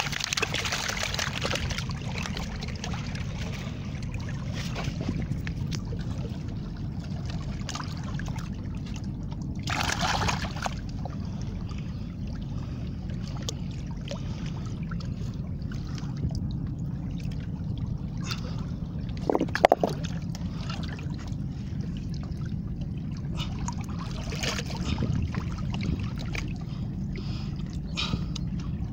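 Seawater sloshing and trickling among harbour rocks over a steady low rumble, with a brief louder rush about a third of the way in and scattered handling clicks. A sharp knock about two-thirds of the way through is the loudest sound.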